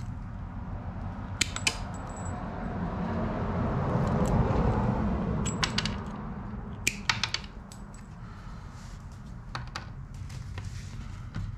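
Sharp metallic clicks and clinks from wire strippers snapping and small metal connector pins knocking on a wooden bench while motorcycle stator wires are stripped, coming in several short clusters. A low rushing noise swells and fades about halfway through.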